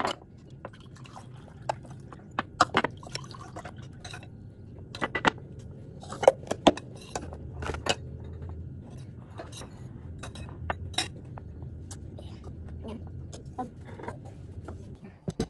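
Bowls and glassware clinking and knocking on a table, a sharp scattered clatter of tableware, with juice poured from a carton into glasses.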